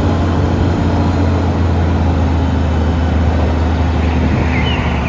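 Eight-wheel tipper truck's diesel engine running steadily, driving the hydraulic ram that raises the tipper body. A bird chirps a few times near the end.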